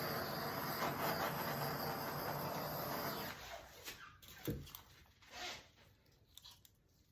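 Handheld torch hissing steadily, then shut off about three seconds in, followed by a few light knocks and clicks, one sharper thump among them.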